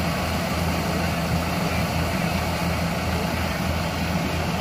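Kubota DC70 combine harvester's diesel engine running steadily, a low even hum with no change in speed.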